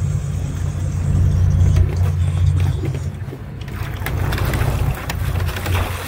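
Charter fishing boat's engine running with a steady low rumble. Faint scattered clicks come in over it in the second half.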